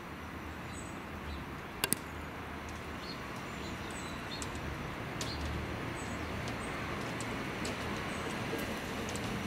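Class 142 Pacer diesel multiple unit approaching, a low rumbling drone that grows slowly louder as it nears. Birds chirp faintly throughout, and two sharp clicks come close together about two seconds in.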